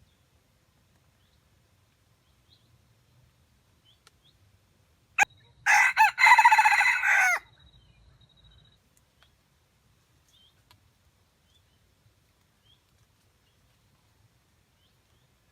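A rooster crows once, a crow of several pitched parts lasting under two seconds that falls away at the end. A single sharp click comes just before it, and faint small-bird chirps sound in the background.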